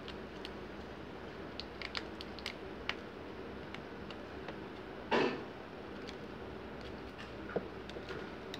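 Small plastic clicks and light scrapes as the glued LCD display of a Vivo Y93 phone is pried away from its frame, with one louder short tearing rasp about five seconds in as the adhesive gives, over a steady low hum.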